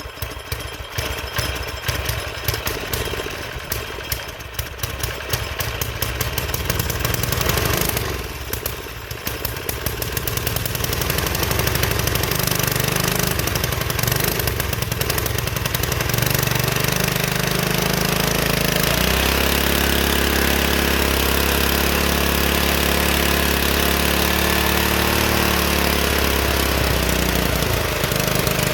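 Mini bike's small engine, sat for three or four years, starting and running. It is rough and uneven at first and falters briefly about 8 seconds in, then settles, running at a steady held pitch from about 19 seconds until near the end.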